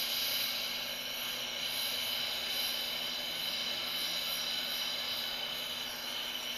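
Jeweler's gas torch flame hissing steadily as it heats a twisted-wire mokume gane billet to flow the solder.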